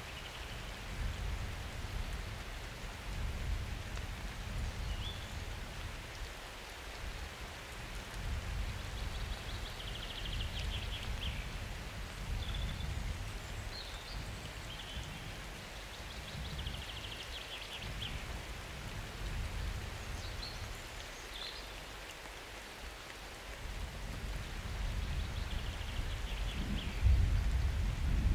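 Steady summer rain falling, under a low, rolling rumble of distant thunder that swells near the end.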